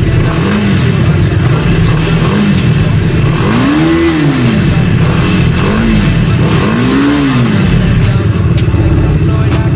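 Bajaj Dominar 250's single-cylinder engine idling and being revved, the pitch rising and falling about five times, with two longer revs near the middle.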